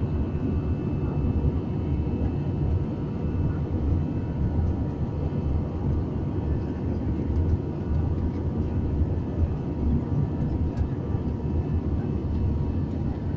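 Steady engine and air noise inside an airliner cabin shortly after takeoff: a dense, even low rumble with a faint steady hum above it.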